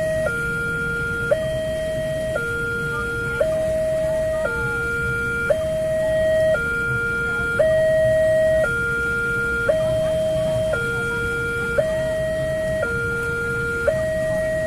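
Railway level-crossing warning alarm sounding from the loudspeaker on the signal post, switching steadily between a lower and a higher tone about once a second, with a short click at each change. It signals that a train is approaching and the crossing is closed.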